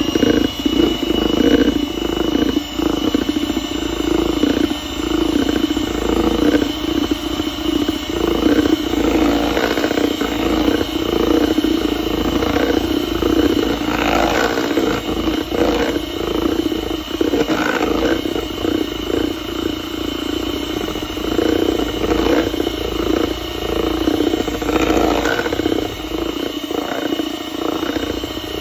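Electric hand mixer running steadily, its wire beaters whisking cake batter in a plastic bowl, a continuous motor hum with a thin steady high whine.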